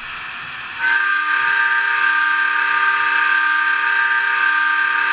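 Hancock air whistle sound effect played through the onboard speaker of an HO scale New Haven EP-5 model locomotive. A soft rush of air comes first, then about a second in the whistle opens into one long, steady chord of several tones.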